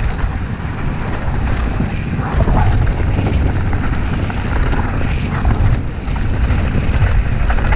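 Downhill mountain bike ridden fast on a dirt trail: a steady low rumble of wind on the action camera's microphone and tyres on dirt, broken by many short knocks and rattles as the bike goes over bumps.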